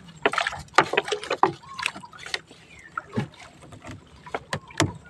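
Fishing net being worked by hand over the side of a small wooden outrigger boat: irregular knocks and clatter against the hull, with water splashing.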